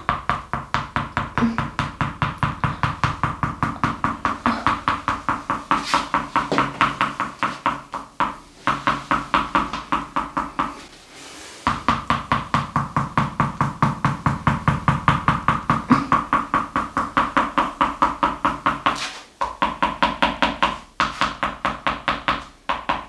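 A small hand-held mallet tapping rapidly and evenly on a patient's back, about five knocks a second, in percussion massage. It stops briefly a few times.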